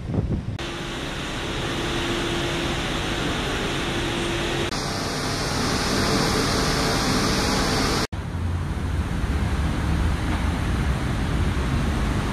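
Alexander Dennis Enviro200 MMC single-deck bus moving off and passing close by, its engine and tyres running under a steady broad hiss. A sharp break about eight seconds in, after which a lower, steady engine drone is heard as the bus approaches.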